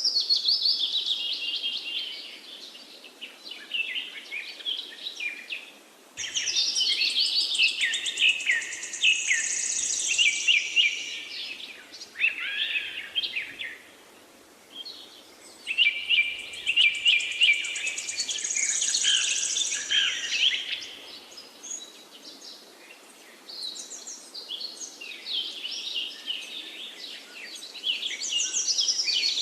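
Songbirds singing in bursts of rapid, high-pitched chirps and trills a few seconds long, with short quieter gaps between the bursts.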